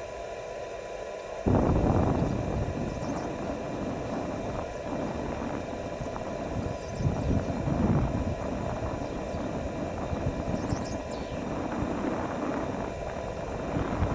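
A steady low hum, then about a second and a half in, strong wind suddenly begins buffeting the microphone with an uneven, gusting rumble.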